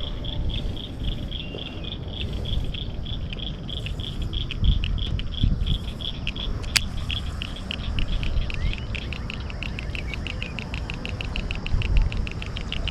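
Insects chirping in a fast, even rhythm, a few chirps a second and quickening in the second half, over a low rumble on the microphone, with one sharp click about seven seconds in.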